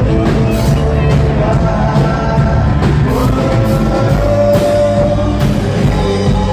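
Live rock band playing loud: drums, electric guitar and keyboards together, with long held keyboard notes over a steady drum beat.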